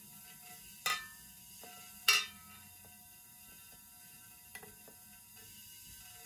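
Two sharp clicks with a brief ring, about a second apart, then a much fainter click a few seconds later, as a glass neon tube is touched to the top of a plasma lamp's glass dome. Under them runs the lamp's faint steady electrical hum.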